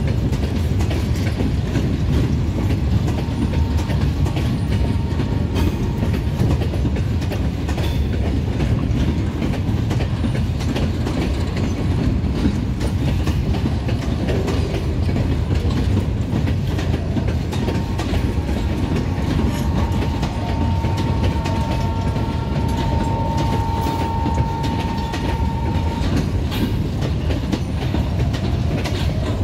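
An empty rake of freight wagons being shunted rolls past close by, its wheels rumbling and clicking over the rail joints. A thin, steady squeal rises out of the rumble about two-thirds of the way through and lasts several seconds.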